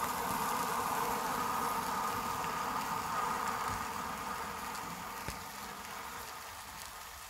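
A 100-year-old Primus pressure stove's burner running with a steady, noisy rush that slowly fades over the last few seconds as the flame dies down.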